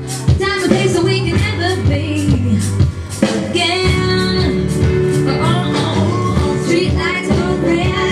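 Loud pop song with a singer over a steady beat, playing on a nightclub's sound system.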